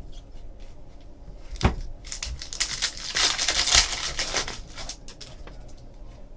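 A trading card pack wrapper being torn open and crinkled, loudest in the middle, after a single knock about a second and a half in.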